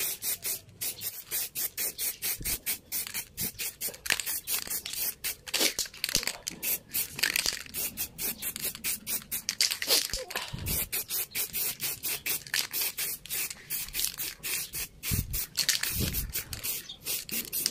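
Aerosol spray-paint can (Sherlux white) hissing in quick, repeated spurts as a white topcoat is sprayed over gray primer.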